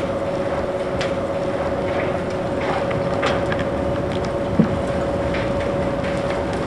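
Bucket wheel excavator's bucket wheel turning, a steady mechanical hum with scattered clanks and rattles of the buckets and spoil, and one dull thud about two-thirds of the way through.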